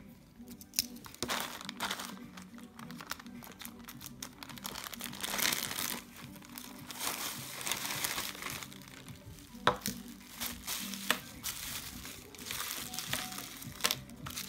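Plastic packaging crinkling and rustling in irregular bursts as it is torn open and handled: a plastic courier mailer, bubble wrap and small plastic bags, with a sharper crackle a little before the tenth second.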